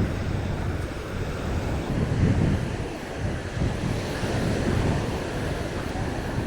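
Wind buffeting the microphone in uneven gusts, over the wash of small waves breaking on the shore.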